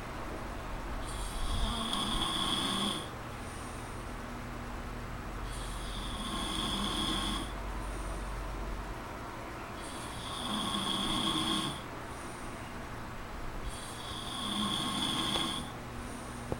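A man snoring in his sleep, four snores about four and a half seconds apart, with quieter breathing between them.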